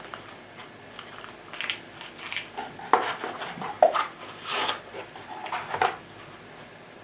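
Hands handling the small parts and packaging of a boxed laser grip set: irregular plastic clicks, scrapes and rustles that stop about a second before the end.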